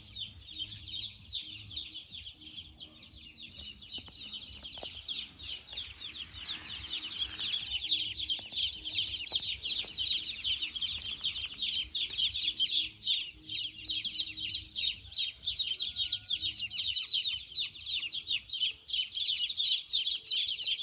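A large flock of young chicks peeping, many high cheeps overlapping into a continuous chatter that grows louder about seven seconds in.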